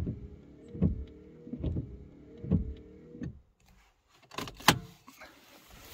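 Skoda Fabia 2 windshield wiper motor and linkage running: a steady motor hum with a thud at each sweep, a little more than once a second, until the wipers park and stop about three seconds in. The freshly repaired linkage works as it should. Two sharp clicks follow about a second later, the second one loud.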